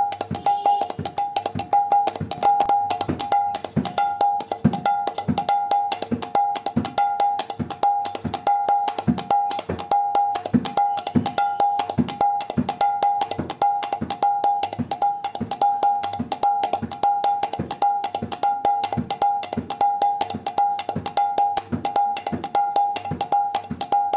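Background music of rhythmic percussion: a steady beat of about two strokes a second under a ringing metallic tone that pulses along with it.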